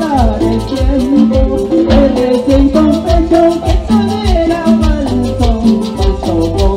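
Live band playing an upbeat Latin tropical dance song: a melody line over a steady bass beat, with a fast, even tick of high percussion such as a shaker.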